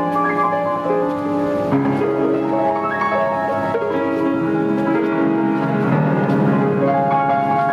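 Piano music: slow, held chords under a melody, the notes changing about once a second.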